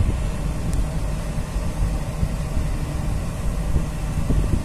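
Tugboat's diesel engine running steadily under way, a low rumble with a hiss of wind and water over it.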